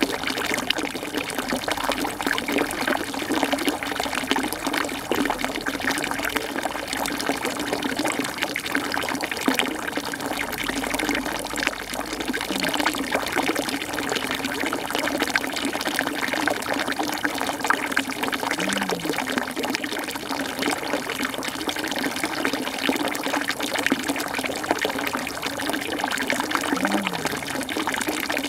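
Steady rush of running water, unchanging throughout.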